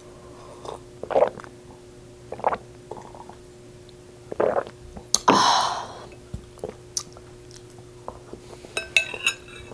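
A person drinking water from a glass: a few swallows and gulps in the first seconds, then a breathy exhale about five seconds in. Near the end a fork clicks against the glass bowl and teeth as she takes a bite and chews, over a faint steady hum.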